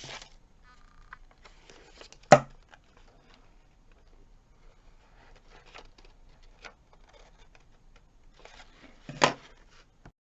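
Paper being handled and trimmed, with faint rustling and small clicks, and two sharp knocks, one about two seconds in (the loudest) and one near the end.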